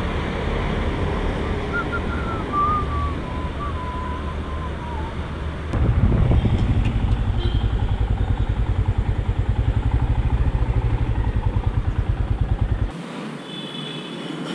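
Motorcycle engine idling with an even, rapid thumping pulse. It is loud from about six seconds in and cuts off suddenly near the end. Before it there is a steady road-noise hiss.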